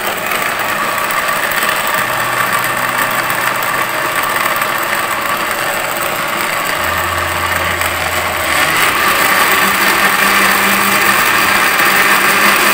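Electric countertop blender running, grinding sweet corn kernels into a smooth purée. It is a steady, loud grinding whir whose motor hum shifts in pitch a few times and gets a little louder after about eight seconds.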